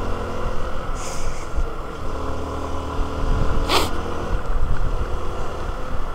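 Hero XPulse 200 motorcycle's single-cylinder engine running steadily under way, with low wind rumble on the microphone. A brief hiss about a second in and a sharp knock a little past halfway.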